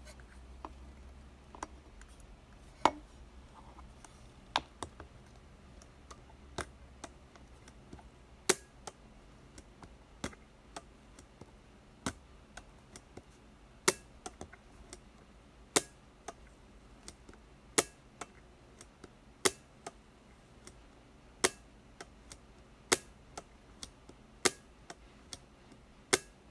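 Konica I film camera's leaf shutter being fired over and over, a sharp click about every two seconds, with fainter clicks between.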